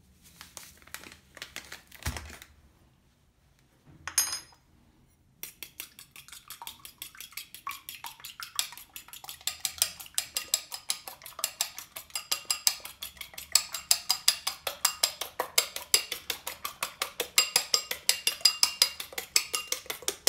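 A fork beating raw eggs in a ceramic bowl, clicking rapidly and evenly against the sides, growing louder as it goes. Before it starts, a single ringing metal clink about four seconds in.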